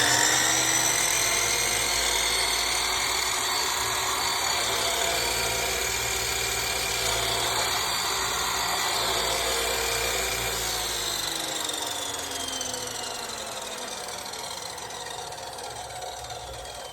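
Chicago Electric 14-inch chop saw's motor running at full speed with a steady whine. About ten seconds in it is switched off, and the pitch falls as the blade spins down.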